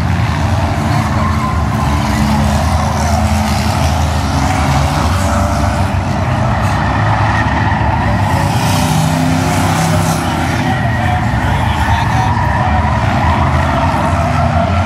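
A pack of race cars' engines running at speed around a short oval track, steady and loud. Their pitch rises and falls as the cars come past and move away.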